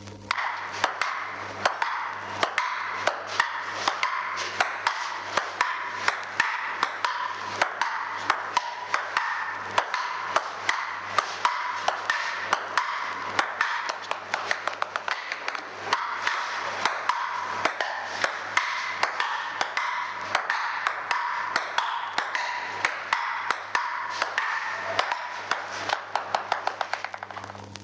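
Table tennis rally: the celluloid ball clicks sharply on paddles and table in a quick, irregular rhythm, with a fast run of clicks near the end. The recording is an old vinyl sound effect with steady background noise.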